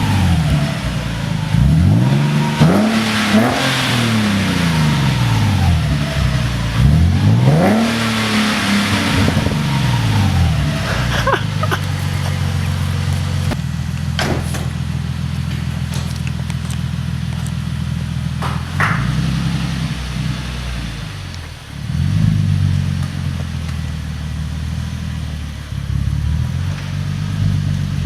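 Nissan 370Z's 3.7-litre V6 through a new 2.5-inch AAM Competition true dual cat-back exhaust, revved up and let fall back several times, then settling to a steady idle with a light blip later on.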